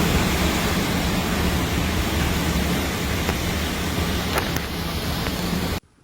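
Steady, dense roar of a rainstorm, heavy rain and strong wind, with a few faint clicks; it cuts off abruptly near the end.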